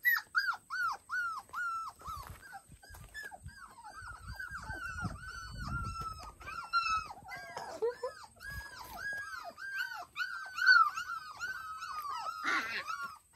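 British Labrador puppies, four weeks old, whimpering and crying in a steady run of short, high-pitched whines, about two a second. The owner puts their fretting down to being out in the sun.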